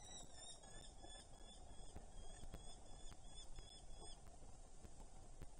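Faint, rapid series of short, sharp notes from a female Eurasian hobby, about four a second, greeting her mate as he brings prey. The calling stops about four seconds in.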